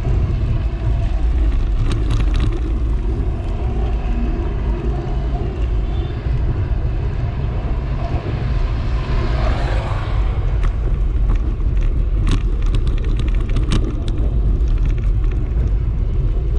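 Wind buffeting the microphone and road noise from a camera on a moving bike, a steady low rumble. An oncoming vehicle passes about nine seconds in, and a few sharp rattles come later.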